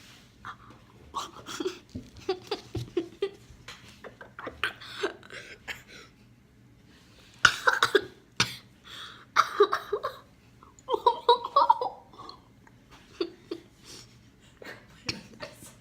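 A person coughing in irregular fits, with laughing and heavy breathing between coughs, reacting to the burn of hot cayenne pepper just eaten. The sharpest coughs come about halfway through.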